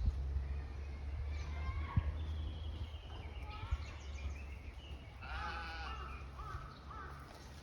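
A sheep bleating in the distance, loudest about five seconds in, over a steady low rumble.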